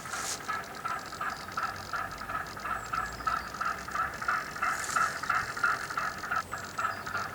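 Radio-controlled model fishing boat's drive running with a steady, rhythmic mechanical chatter of about four to five pulses a second, with brief hissing splashes once near the start and again about five seconds in.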